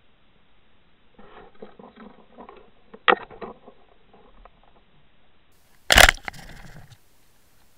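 Northern pike and swimbait lure heard through an underwater camera: faint crackling and ticking with one sharp click, then a loud thump about six seconds in as the pike strikes the lure near the camera, followed by a second of rushing water.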